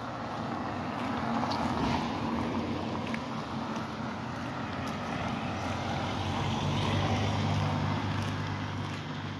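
Cars driving past on a city street: tyre and engine noise swelling as one goes by about two seconds in and another around seven seconds, the second with a steady low engine hum.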